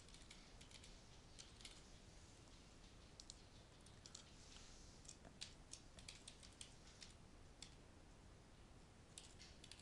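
Faint computer keyboard typing: scattered, uneven key clicks over a low room hiss.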